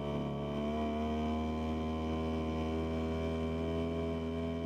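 Boat engine running steadily under way, an even hum with a slight shift in pitch in the first second.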